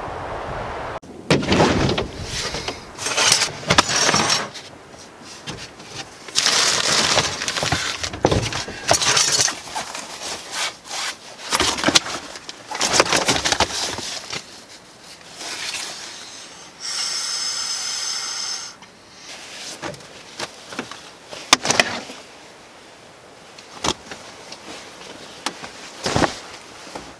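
Camping bedding being laid out in the back of an SUV: a sleeping pad, blanket and sleeping bag rustling and rubbing against the cargo floor, with irregular knocks and bumps of gear. A steady hiss lasts about two seconds a little past the middle.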